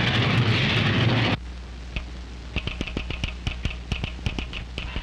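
Steam train running at speed, a loud steady rush of noise that cuts off abruptly just over a second in. Then a telegraph sounder clatters out Morse code in quick, irregular clicks.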